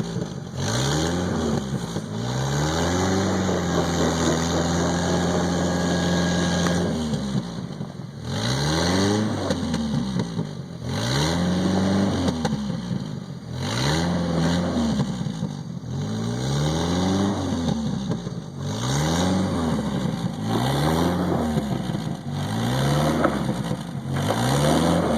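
Jeep Wrangler YJ engine revving up and falling back over and over, about every two to three seconds, with one longer held rev a few seconds in, as it works under load to push through a snowbank.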